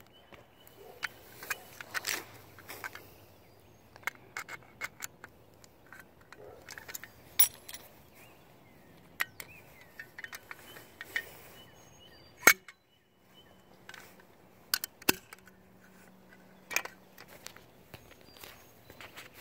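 Scattered clicks and knocks of a fire alarm pull station being handled and pulled. A sharp click about twelve seconds in is the loudest.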